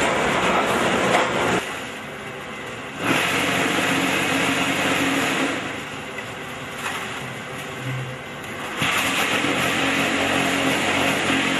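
Concrete block-making plant machinery running loudly as a steady mechanical din. It drops off sharply for about a second and a half near two seconds in, comes back, then eases off again for about three seconds in the middle before rising once more.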